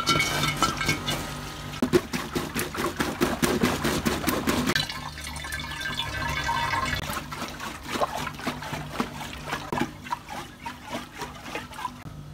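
Water sloshing and trickling inside a water-filled rubber balloon as hands squeeze and rub it, with many small clicks and rubbery rubbing sounds, busiest in the first half.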